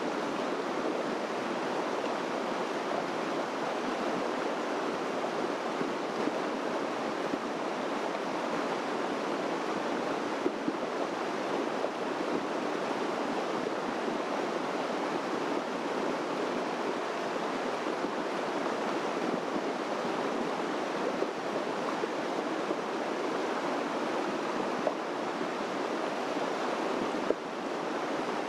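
Steady rushing of a stream: an even, unbroken water noise.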